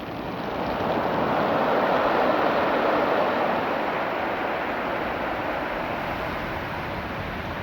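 Surf washing over a beach of small rounded stones, with the stones rattling in the wash. The surge swells over the first two seconds or so, then slowly eases as the water draws back.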